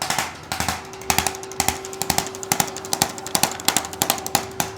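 A fast, uneven run of sharp knocks or taps, several a second, over a steady faint hum.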